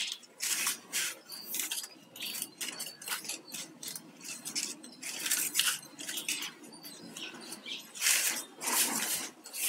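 Flat plastic basket-weaving wire being handled and knotted by hand: strands rustling, scraping and clicking against each other in short, irregular strokes, with louder swishes about eight seconds in as a long strand is pulled through the knot.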